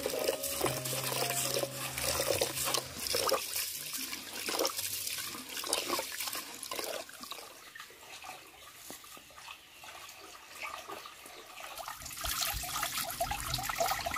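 Water running and splashing, with small irregular splashes and clicks.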